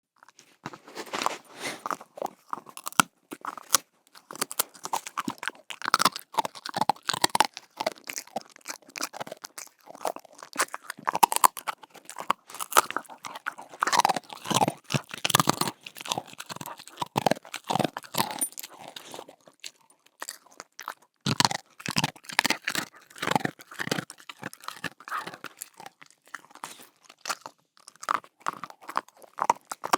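A dog chewing a bone treat: irregular wet crunching and gnawing bites, with short pauses between bouts.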